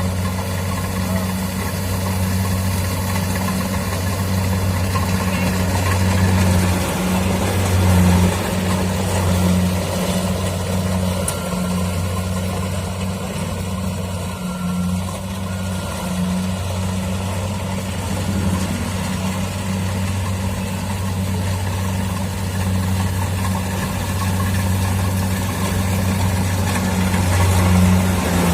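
Kubota DC-70 Plus combine harvester's diesel engine running steadily, a continuous low hum.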